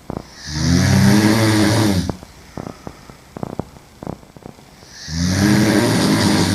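A woman sleeping on her back snoring loudly: two long snores about four seconds apart, each lasting about a second and a half, with a few faint clicks in between.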